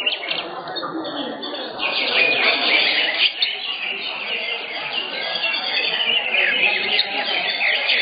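Several caged greater green leafbirds (cucak hijau) singing at once in a songbird contest: a dense, continuous stream of quick chirps and whistled phrases, over a background of crowd voices.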